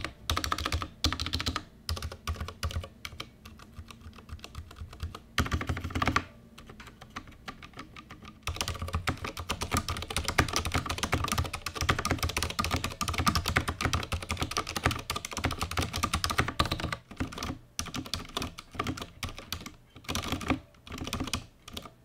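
Durgod Taurus K320 Nebula tenkeyless mechanical keyboard, with Cherry MX Silent Red switches, lubed stabilizers and stock double-shot PBT keycaps, being typed on in a sound test. Single keystrokes with short gaps give way to steady fast typing about eight seconds in. The sound is crisp and solid.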